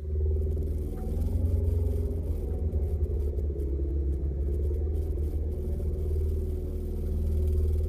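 Deep, steady rumbling drone with several low sustained tones, from a film soundtrack.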